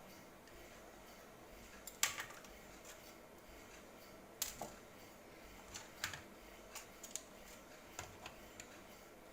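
Sharp clicks and light taps from laptop and drive parts being handled, irregular and spaced out. The loudest click comes about two seconds in, followed by a scattering of smaller ticks.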